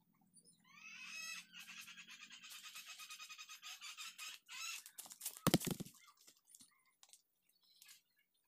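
A rooster crowing: one long call of about four seconds that rises at its start. About five and a half seconds in comes a short, heavy thud, the loudest sound.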